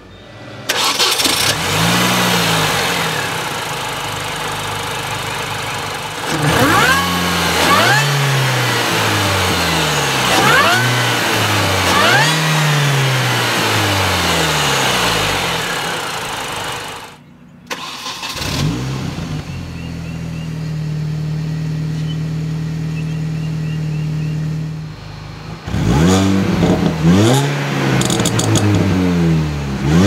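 2005 Mini Cooper S (R53) supercharged 1.6-litre four-cylinder revved several times, each rev rising and falling with the supercharger whir climbing and dropping along with it. About two-thirds of the way in it settles to a steady idle, then is revved again near the end.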